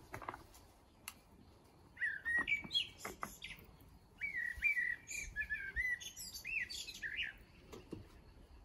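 Common kestrel calling: two bouts of quick, repeated sharp calls, the first about two seconds in and a longer one from about four seconds in.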